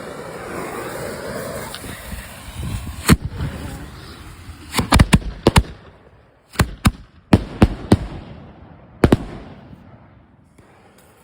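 Fireworks going off: a sudden hissing crackle for the first few seconds, then a string of about a dozen sharp bangs, irregularly spaced and partly in quick clusters, the last about nine seconds in, after which the sound fades away.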